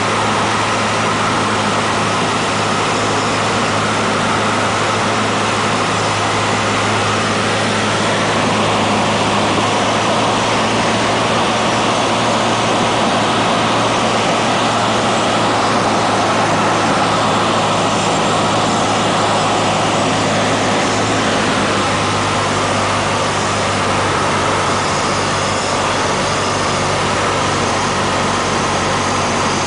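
Cessna 152's four-cylinder Lycoming O-235 engine and propeller droning steadily, heard inside the cockpit with wind noise, through the final approach and landing. The engine note shifts slightly about two-thirds of the way through.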